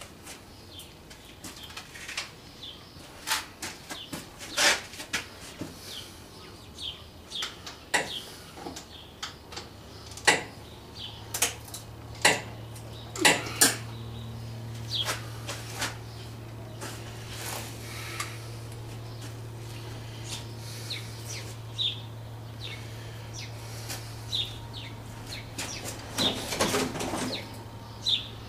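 Metal hand tools clinking and knocking: irregular sharp clicks throughout. A steady low hum comes in about ten seconds in.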